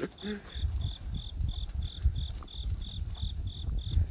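A cricket chirping in an even rhythm of about three short chirps a second, over an irregular low rumble.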